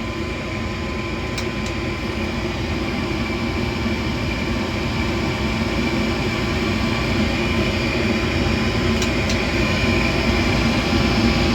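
York gas furnace relit and running: the burners and fan make a steady rumble with a hum that slowly gets louder.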